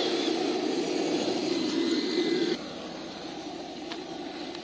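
Electric motor and gearbox of an RC rock crawler whining steadily, cutting off abruptly about two and a half seconds in, leaving a fainter steady noise.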